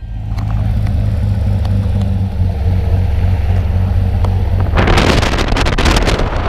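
Single-engine light aircraft's piston engine and propeller running on the ground, a steady drone heard through the open jump door. About five seconds in a loud rushing noise joins it.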